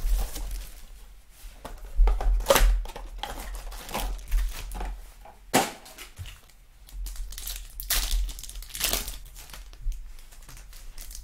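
Trading card pack wrappers crinkling and tearing as packs of Donruss Optic football cards are opened, in irregular separate bursts.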